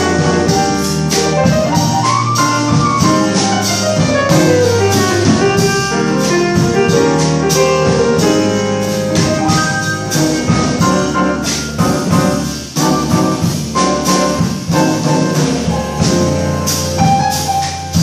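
Live jazz combo playing an instrumental break in a bolero: piano, upright double bass and drum kit.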